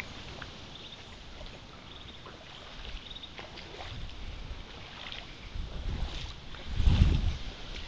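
Wind buffeting the microphone in low rumbling gusts, strongest about seven seconds in, with a few faint high chirps in the first few seconds.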